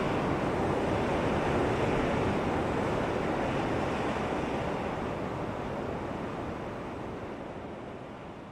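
Steady rush of flowing river water, fading out gradually over the second half.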